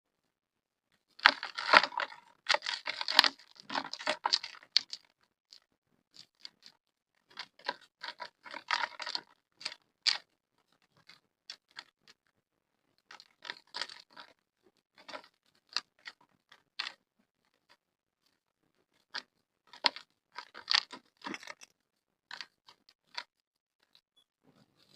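Hard, gritty dried black mud crumbling, crunching and crackling in bursts of sharp cracks with short pauses between, the loudest burst early on.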